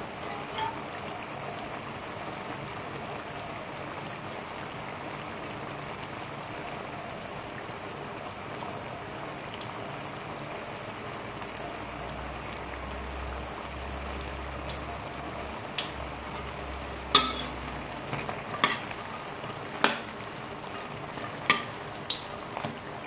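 Mung bean fritters deep-frying in oil in a stainless steel wok, with a steady sizzle. Near the end a metal ladle clinks against the wok a few times as the fritters are moved.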